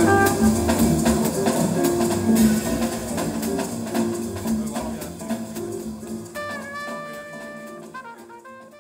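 Big-band jazz recording with drums playing over large hi-fi loudspeakers, fading steadily to quiet by the end, with a few long held notes in the last few seconds.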